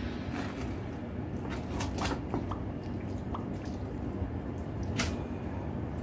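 Raw chicken being cut with a kitchen knife and pulled apart by hand: soft wet squishing with a few sharp clicks, most of them about two seconds in, over a low steady hum.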